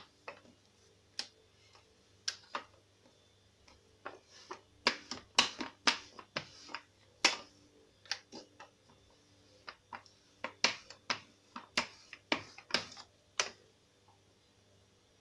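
Metal rolling pin with plastic handles clicking and knocking on a countertop while dough is rolled out, in irregular clusters of sharp taps.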